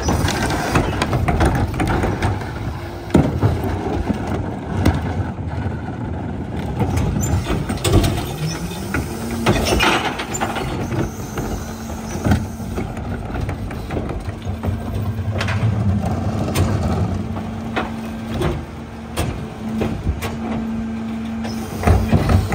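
Mack Granite Heil rear-loader garbage truck running at the curb while its rear tippers lift and dump recycling carts, with repeated knocks and bangs of the carts against the hopper. About eight seconds in, the truck's engine and hydraulics rise in pitch and then hold a steady higher hum.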